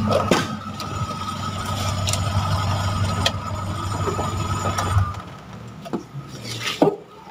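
The 1997 Suzuki Carry (Carreta) engine runs steadily at idle, then is switched off and stops about five seconds in. A few sharp clicks follow.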